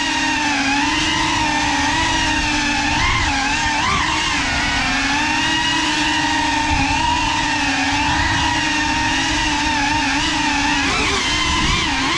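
GEPRC CineLog35 cinewhoop drone's motors and ducted propellers whining steadily at high speed. The pitch briefly dips and rises a few times with the throttle, most around 3 and 4 seconds in and again near the end.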